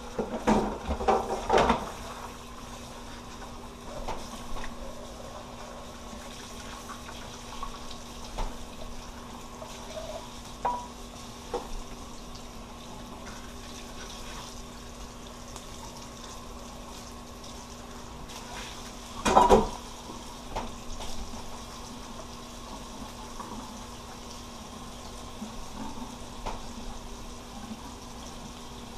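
Potato cakes frying in shallow oil in a nonstick pan, a steady sizzle over a faint low hum. A plastic spatula taps and scrapes against the pan, in a cluster of knocks in the first two seconds and another loud one about two-thirds of the way through.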